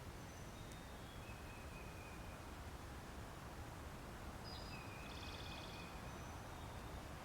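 Faint songbirds calling over a steady low background rumble: thin, high whistled notes about a second in and again after four seconds, with a short rapid trill around five seconds.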